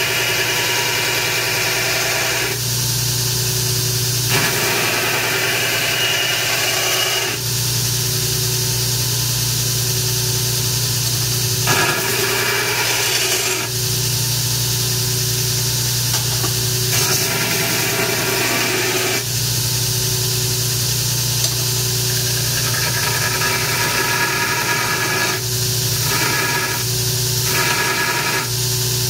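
Grizzly 2x72 belt grinder running steadily while an AEB-L stainless steel knife blank is pressed against the moving belt for profiling. The grinding noise comes and goes in repeated passes every few seconds.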